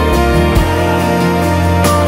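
Instrumental background music with held notes over a steady bass and a soft beat.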